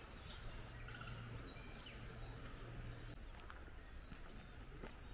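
Quiet outdoor ambience with scattered short, high chirps of small birds over a low steady background rumble.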